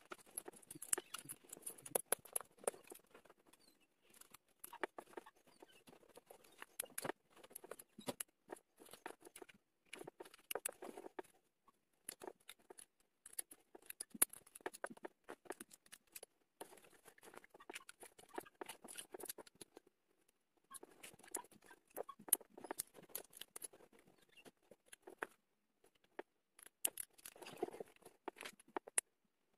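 LEGO bricks being handled and snapped together by hand: irregular small plastic clicks, taps and rattles as pieces are picked from a loose pile and pressed into place, with a few brief pauses.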